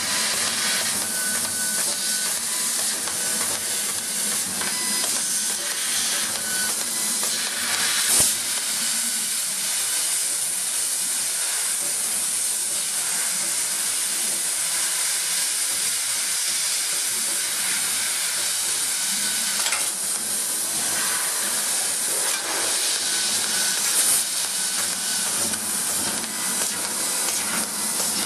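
Steady hiss of a five-axis CO2 laser cutting head's assist-gas jet as it cuts a pressed sheet-metal panel. Two brief sharp clicks stand out, one about eight seconds in and another later on.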